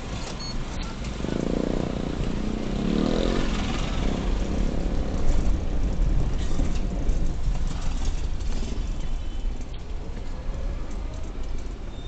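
Car driving in town traffic, heard from inside the cabin: a steady low engine and road rumble, with a louder stretch of engine noise from about one to four seconds in.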